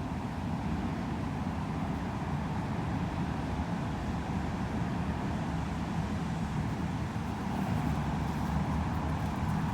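Steady low background rumble with no distinct events, the same hum that sits under the talk.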